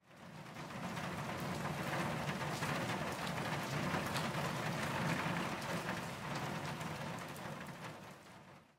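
Steady hiss with scattered faint ticks. It fades in from silence over the first second or so and fades out near the end.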